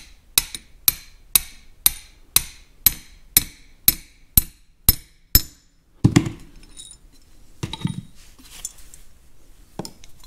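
A hammer tapping a driver rod to drive a new throttle shaft bushing into a Farmall M carburetor's throttle body: about eleven sharp metallic taps, two a second, stopping about five and a half seconds in. Then a couple of dull thumps and a click as the hammer is set down and the body handled.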